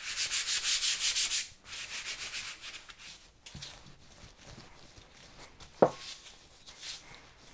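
Gloved hands rubbing flour along a wooden rolling pin: a loud, fast, scratchy rubbing for about a second and a half. Then the pin rolls more quietly over brioche dough on a floured counter, with one small knock about six seconds in.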